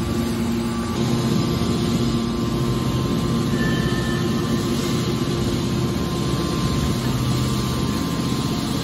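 Hydraulic scrap metal baler running, its pump unit giving a steady hum while the hydraulic cylinder lowers the press lid over the scrap.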